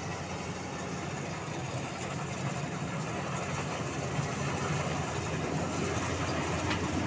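Rice combine harvester's engine running steadily while it cuts standing rice: a low, even drone that grows gradually louder as the machine comes closer.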